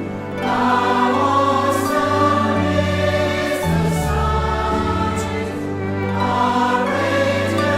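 Choral music: a choir singing slow, held chords over a sustained bass line, the chord changing every second or so.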